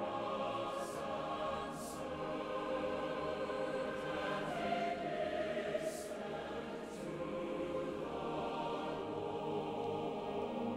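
Film score with a choir singing long, sustained chords.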